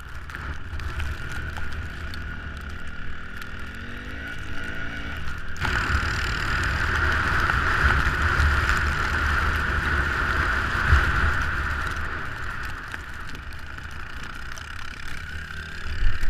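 Off-road vehicle engine running, with a heavy low rumble throughout. About five and a half seconds in the sound cuts abruptly to a louder, steadier engine drone.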